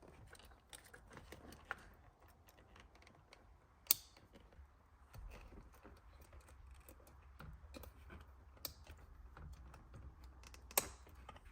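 Faint small clicks and light handling of the horn wiring and plastic connectors at the steering wheel, with a sharper click about four seconds in and another near the end, as connectors are plugged and snapped into place.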